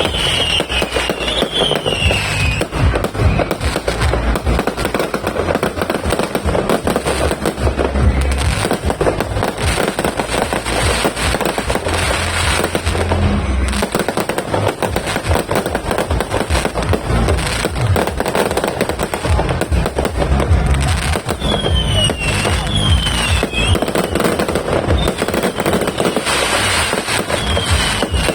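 A 5,000-shot fireworks barrage firing continuously: dense rapid pops and crackling with low booms underneath. Short whistles sound near the start and again several times in the last quarter.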